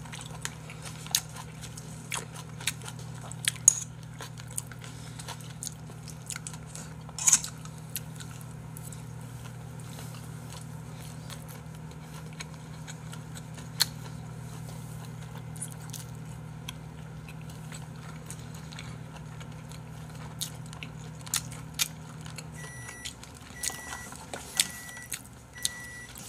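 Eating sounds: chewing, with chopsticks clicking against a bowl in scattered sharp ticks. A low steady hum runs underneath and stops about 23 seconds in, and a row of short high beeps about a second apart follows near the end.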